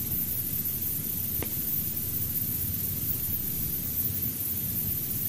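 Steady background hiss with a low rumble, the noise floor of the talk's recording, with one faint tick about a second and a half in.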